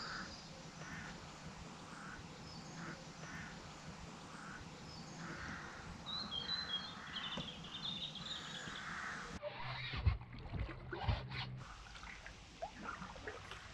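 Birds calling repeatedly by the water, with higher chirps over them. After a cut about nine seconds in, two dull knocks about a second apart from the kayak and paddling.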